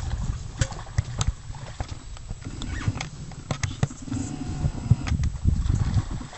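Wolves growling and scuffling in brush, an irregular low rumble broken by many sharp clicks and snaps.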